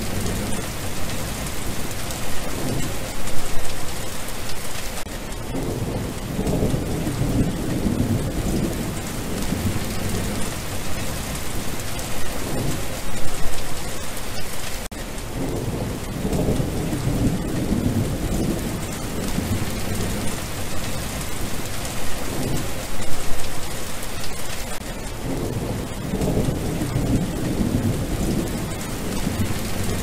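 Steady rain falling on a wet surface, an even hiss of drops. Low rumbles swell up under it every few seconds.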